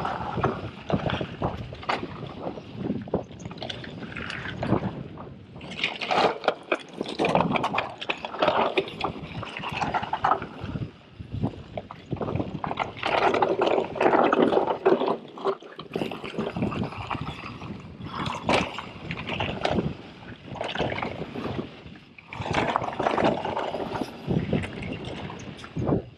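Orbea Rallon mountain bike descending a rough, rocky trail: tyres crunching over gravel and stones, with the bike rattling and clattering over the bumps in uneven surges.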